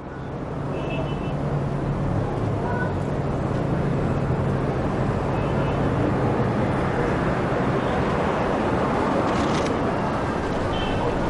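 Car engine running steadily with a low hum and a constant rush, swelling up over the first two seconds and then holding level.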